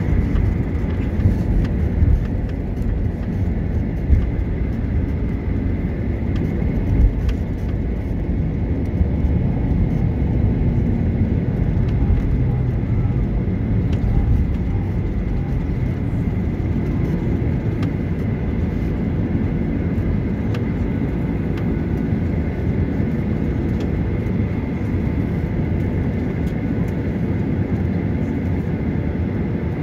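Cabin noise inside a Boeing 737-900ER taxiing: the CFM56-7B jet engines run at low power over a steady low rumble from the aircraft rolling on the pavement, with a few short thumps in the first several seconds.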